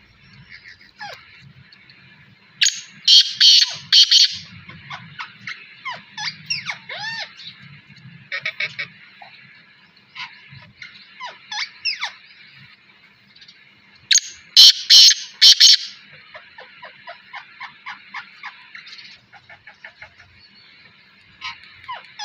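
A parrot and a black francolin calling: many short chirps and gliding whistles, broken twice by bouts of loud harsh calls of three or four notes each.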